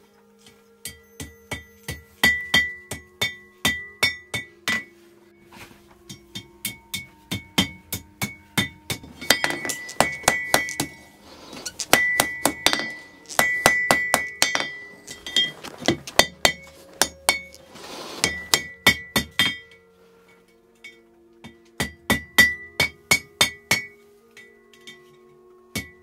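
Blacksmith's hammer striking red-hot iron on the anvil, bending the strip over the horn into a squared U-shaped clamp. Quick runs of blows, about three a second, each leaving the anvil ringing, with short pauses between runs.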